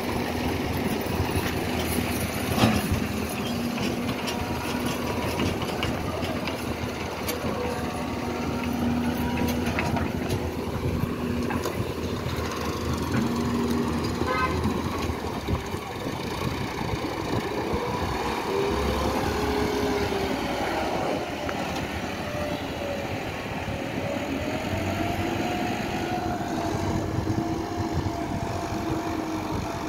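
Doosan excavator's diesel engine running under load as it digs and dumps buckets of soil into a tractor trolley, with a sharp clank about two and a half seconds in. In the second half a farm tractor's diesel engine rises and falls in pitch as it pulls the loaded trolley away.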